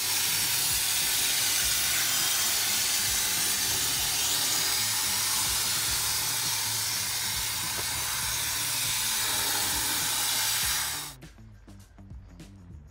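Spray foam gun spraying foam insulation to encapsulate an attic air duct: a loud, steady hiss that cuts off sharply about eleven seconds in. Background music with a steady beat plays underneath.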